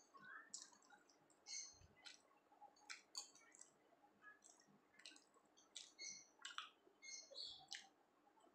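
Faint, wet mouth sounds of a person chewing soft flatbread and chickpea dal: irregular small clicks and lip smacks, a few each second.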